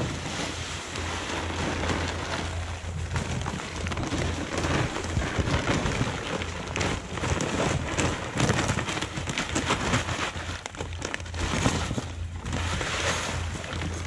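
Seed oats pouring from a sack into a seed drill's hopper: a continuous hiss of grain that swells several times as the sack is tipped.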